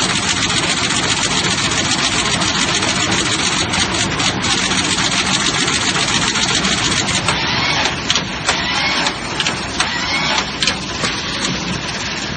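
Automatic PCB component insertion machine running, a dense, fast mechanical clatter. In the second half it thins into separate sharper clicks about every half second.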